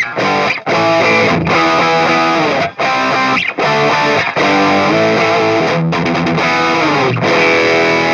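Electric guitar played through the Flatsons KE1 multi-effects pedal on its Brit Plexi amp model, a Plexi-style overdriven amp sound. It plays distorted chords in choppy phrases, with brief full stops between them.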